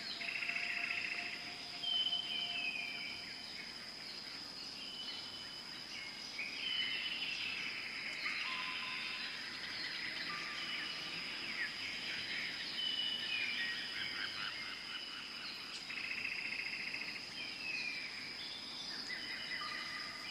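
Jungle ambience: a steady high-pitched insect drone under many birds whistling and trilling, several of the calls sliding down in pitch.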